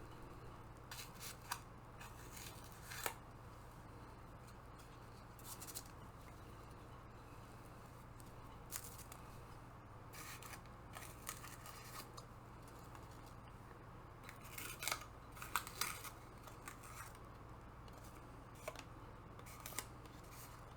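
Faint, scattered clicks, snips and short rustles of a shipping package being cut and unwrapped by hand. They come in brief bursts with pauses between them, busiest near the middle and again toward the end.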